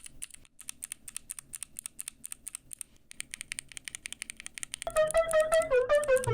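Typing on a Keychron Q1 mechanical keyboard fitted with clicky and linear switches: a fast run of key clicks. Background music comes in about five seconds in.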